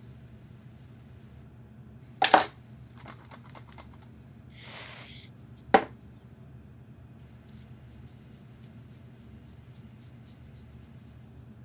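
Shaving-foam aerosol can hissing for under a second as foam is dispensed, with a loud knock a couple of seconds before it and a sharp click just after; faint ticks and clicks follow.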